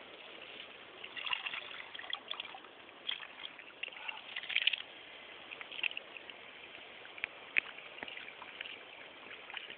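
Water splashing and trickling around a landing net held in the water at the side of an inflatable boat, with a caught fish in the net. Small, irregular splashes come and go, the loudest cluster about four and a half seconds in.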